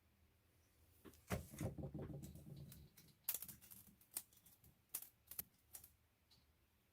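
Faint, scattered sharp clicks and taps of small plastic and metal parts as an RC car's oil-filled shock and its plastic eyelet and screw are handled and fitted, with a short rattling stretch about a second in.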